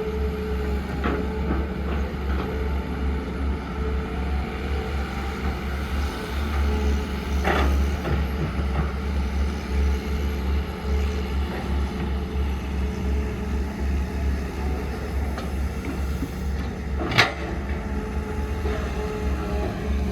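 Heavy diesel engine running steadily with a deep drone, with a few short knocks from the machinery, the loudest a sharp one near the end.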